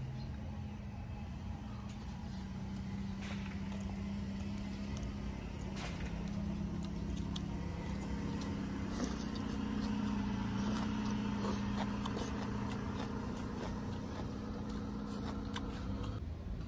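A steady low motor-like hum that wavers a little in pitch, with scattered light clicks of chopsticks against a steel pot and ceramic bowls. The hum cuts off suddenly near the end.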